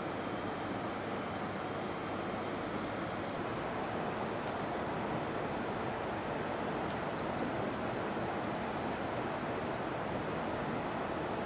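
Steady rushing of distant river rapids. A faint high chirp repeats about three times a second from a few seconds in.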